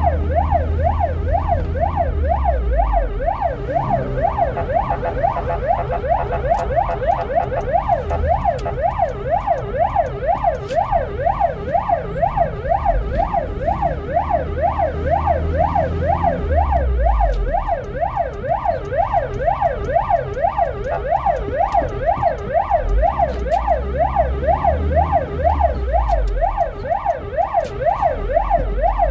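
Ambulance siren on a fast yelp, its pitch sweeping up and down about two to three times a second, heard from inside the ambulance's cab. The vehicle's engine runs as a low rumble beneath it.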